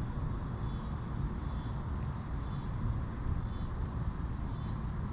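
Spinning fishing reel cranked slowly to retrieve a lure: a faint high whir that swells and fades about once a second with each turn of the handle, over a low steady rumble.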